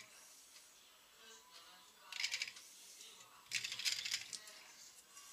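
Small objects rattling and clinking as they are handled on a fly-tying bench: two bursts of clicks, the first about two seconds in and a longer one about a second and a half later.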